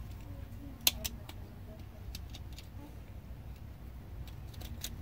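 Scattered light clicks and taps of small plastic and metal power-drill parts being handled during disassembly, the sharpest about a second in, over a low steady hum.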